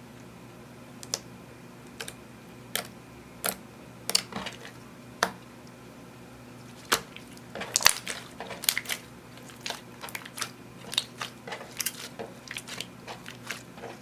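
Clear slime being worked by hand, making sharp clicking pops, spaced out at first and coming thick and fast from about halfway through.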